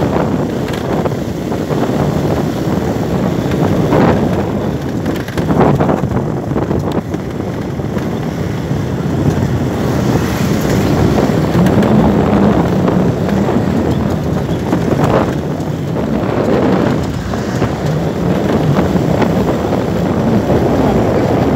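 Wind rushing and buffeting against the microphone of a moving vehicle, with road and engine noise underneath, swelling in brief gusts now and then.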